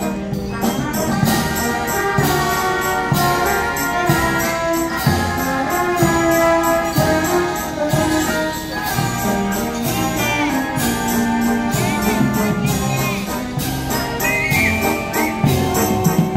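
Brass band playing live: brass instruments carrying the melody over a drum kit with cymbal strikes on a steady beat.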